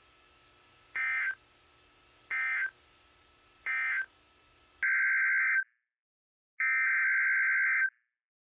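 Emergency Alert System SAME data bursts, a warbling two-tone digital screech. Three short bursts about 1.3 s apart are the end-of-message code closing the warning. They are followed, after an abrupt cut to dead silence, by two longer bursts of the next alert's header.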